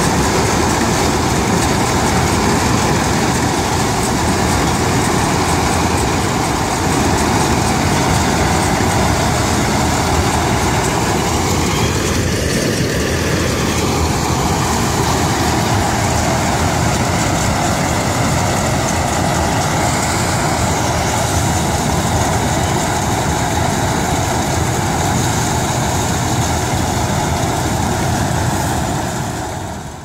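Combine harvester running as it cuts and threshes standing rice: a loud, steady mechanical noise of engine and working machinery, its tone shifting briefly about halfway through.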